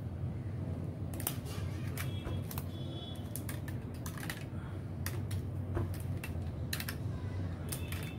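Rubber bands being stretched around an iPhone XR and snapping against its glass back, heard as irregular sharp clicks over a steady low hum. The bands clamp the newly glued back glass while the adhesive sets.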